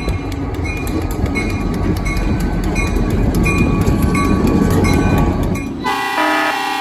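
Train rolling past with wheels clattering and clicking over the rail joints. Near the end the locomotive horn starts sounding a multi-note chord.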